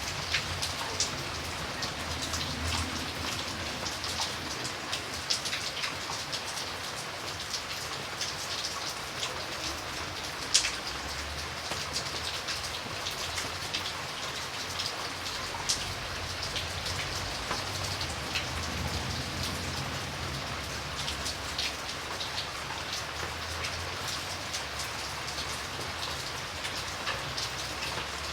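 Steady rain falling on a surface, an even hiss with many individual drops ticking through it, one sharper drop about ten seconds in.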